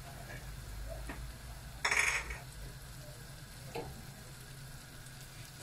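Butter melting and sizzling in a hot frying pan, with one short, louder burst of noise about two seconds in and a few faint ticks.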